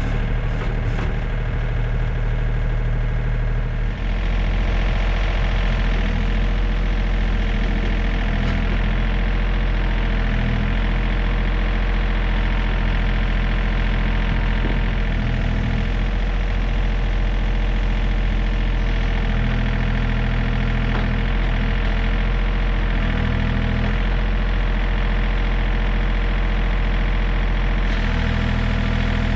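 Diesel engine of a John Deere 3320 compact tractor running steadily. Its note rises about four seconds in and shifts a few more times as the engine speed changes.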